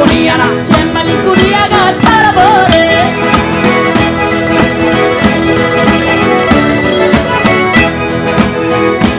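Live Salento folk dance music from a band, with a steady quick beat under held instrument notes and a wavering melodic line in the first few seconds.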